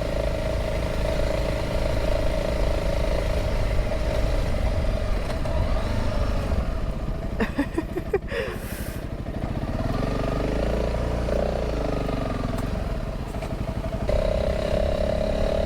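Single-cylinder engine of a Honda CRF300 dual-sport motorcycle running steadily at low speed, ridden slowly on sand. A brief clatter of knocks comes about eight seconds in.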